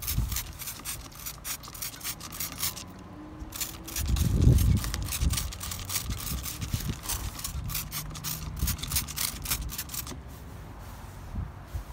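Hand trigger spray bottle pumped rapidly, about four short sprays a second, with a pause about three seconds in and the spraying ending about ten seconds in. A brief low rumble, the loudest sound, comes around four seconds in.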